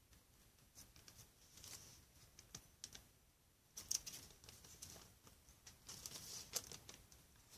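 Faint, scattered light clicks and taps as foamboard door panes with clear plastic windows are handled and slotted together at right angles.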